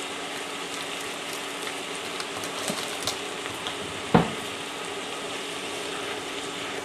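Chopped tomatoes and onions sizzling in a pot with oil and spices, with small crackles throughout. There is one sharp knock of the wooden spoon against the pot about four seconds in, then stirring near the end.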